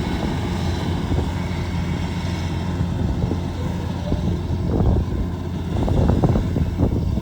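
Rice harvesting machine's engine running steadily, with a stretch of clattering about five to seven seconds in.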